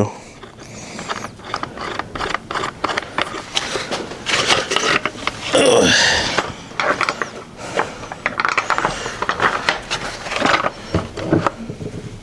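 Small metal nuts being threaded by hand onto the long bolts of a disassembled air compressor regulator: a run of uneven clicks, ticks and scrapes of metal parts being handled.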